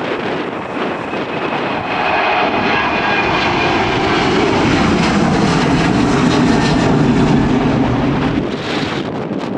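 Aircraft engines passing, swelling to a loud rumble with a faint whine about two seconds in, then easing off near the end, with wind buffeting the microphone throughout.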